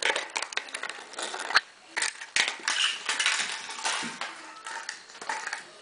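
Small dog scuffling at play, making scratchy clicking and clattering, with two sharp knocks about a second and a half and two and a half seconds in.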